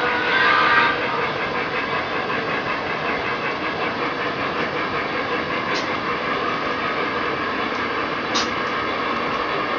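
O-gauge model freight cars rolling past on the track in a steady metallic rumble, with a few sharp clicks later on as wheels cross rail joints. The sound is briefly louder in the first second.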